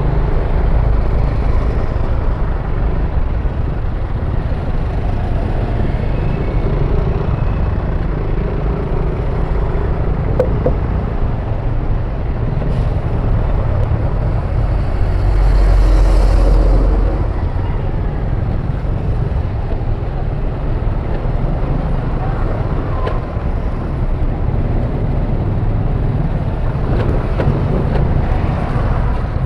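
Yamaha NMAX scooter being ridden, its engine and road and wind noise buffeting the microphone in a steady low rumble, with a louder surge about halfway through.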